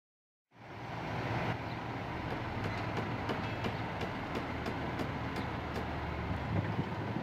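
Red KiHa 40-series diesel railcar running its diesel engine with a steady low throb, with a series of sharp clicks in the middle. The sound fades in from silence about half a second in.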